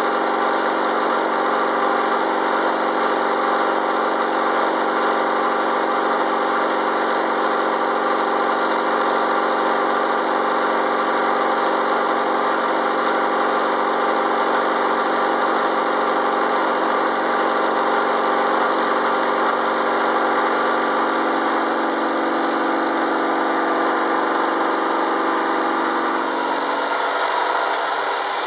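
Milling machine running a carbide-insert chamfer cutter through a heavy 75-thousandths cut on a tomahawk's hook edge, a steady multi-toned machining hum under a hiss. The high tool forces on this setup cause chatter and vibration, which the machinist blames on the straight-fluted chamfer cutter. Near the end the lower tones drop away as the pass finishes.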